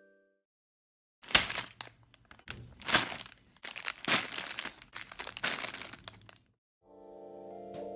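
A clear plastic bag full of Lego pieces crinkling and rustling as it is handled, in irregular bursts with sharp clicks, for about five seconds.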